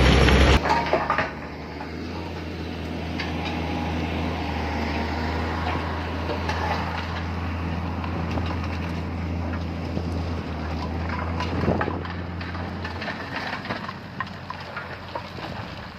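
Diesel engine of heavy earthmoving equipment running steadily, with scattered clanks and knocks. A louder rushing noise cuts off abruptly just after the start, and the engine hum drops away about thirteen seconds in.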